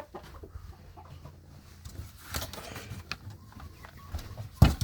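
Hens clucking, with scattered small knocks and a loud thump near the end.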